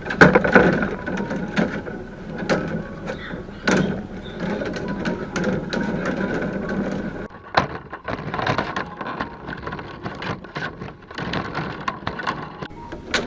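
Thin split-bamboo strips being woven by hand, rustling and scraping against each other and the concrete floor, with many irregular clicks and taps as the strips are bent and threaded.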